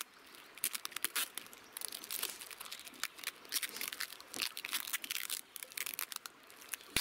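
Close, irregular rustling and crackling: many small sharp crackles of handling or brushing noise, with no steady tone.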